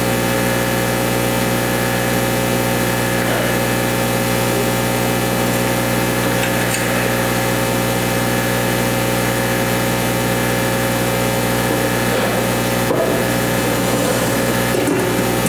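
Steady electrical hum with a buzzy stack of overtones, as loud as the speech around it. There are faint handling sounds near the end.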